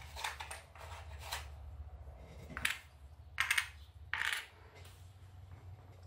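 Board game components set down on a tabletop: a few light, separate taps and clicks, the sharpest about two and a half, three and a half and four seconds in.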